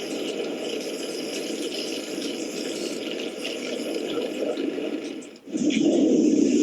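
Steady rushing water. It breaks off briefly about five and a half seconds in, then comes back louder.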